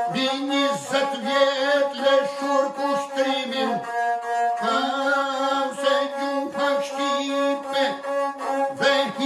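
Lahutë, the Albanian single-stringed bowed folk lute, playing a repeating melody in short bow strokes.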